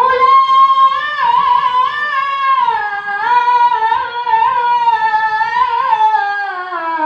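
A child reciter chanting the Quran in tilawah style, holding one long melismatic note on the word "wa" with wavering ornaments, sliding gradually lower toward the end.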